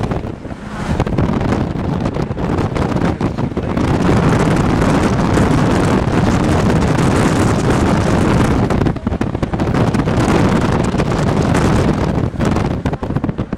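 Strong storm wind buffeting the microphone: a loud, continuous rushing that swells about four seconds in and briefly eases twice.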